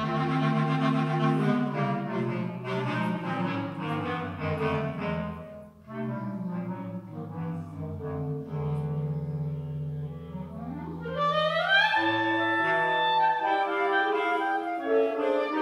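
Clarinet ensemble playing sustained chords over a low bass line. About six seconds in the sound briefly thins out, and near eleven seconds a quick upward run leads into higher, brighter chords.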